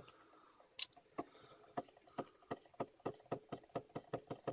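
Stepper motors of a homemade pen-plotting CNC stepping in sharp clicks, the clicks coming ever faster, from about two a second to several a second, as the axis speeds up along the curve. One sharper, higher click comes just before the series starts.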